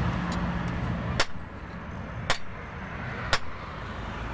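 Hand hammer striking a hot steel cleaver blank, cut from a truck leaf spring, on an anvil: sharp metallic blows about a second apart, each with a brief high ring.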